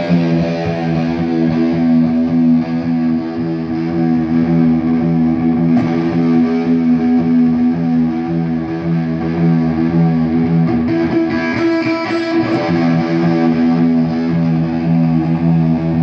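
Electric guitar played through a chain of effects pedals into an Orange valve amp, with long sustained distorted chords. The chord changes about twelve seconds in.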